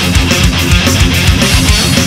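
Melodic death metal recording: distorted electric guitars over a fast, driving drum beat, loud and dense throughout.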